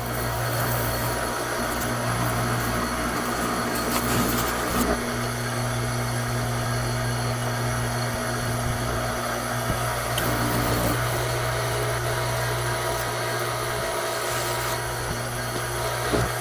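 Pressure washer running steadily while spraying, a motor hum under a broad hiss, with a few brief dips.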